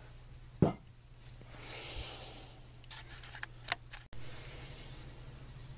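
Handling noises on a workbench: one sharp knock under a second in, a soft rustle around two seconds, then a few light clicks, over a low steady hum. The sound drops out for an instant at an edit about four seconds in.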